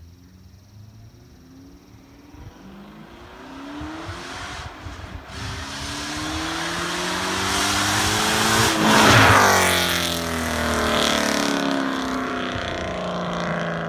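A 1995 BMW 540i's 4.0-litre M60B40 V8, straight-piped from the catalytic converters back, accelerating toward the listener with its pitch climbing. It is loudest as it passes about nine seconds in, then its pitch drops as it pulls away.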